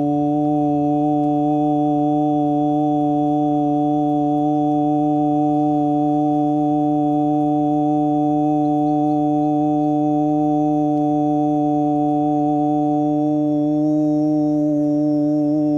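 A deep drone held steadily on one pitch, rich in overtones, with no break; its upper overtones shift slightly near the end.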